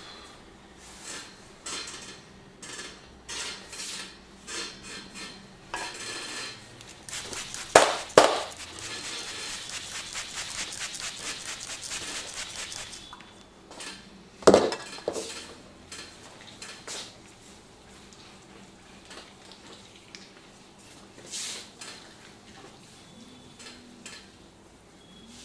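Percussive hand massage: a run of separate slaps and taps on the body, two very loud sharp cracks about eight seconds in, then a fast run of rapid tapping for about four seconds. Another loud crack comes about halfway through, and after it the taps thin out and grow quieter.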